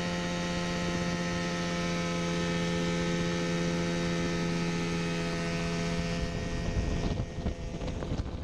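Mosquito Air ultralight helicopter's engine and rotors running at lift-off power: a steady pitched drone. About seven seconds in the drone weakens and an uneven, gusty low rumble takes over as the machine rises into a hover.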